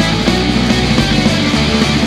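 Loud rock music with electric guitar and a steady beat, running without a break.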